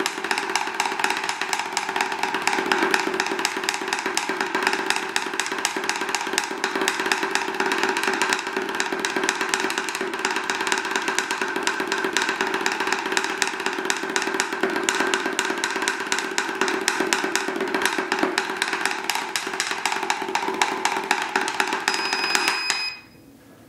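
Drumsticks playing a fast, even double-stroke roll on a practice pad, about sixteen strokes a second, in a timed speed run. The strokes stop abruptly near the end as a short electronic beep sounds.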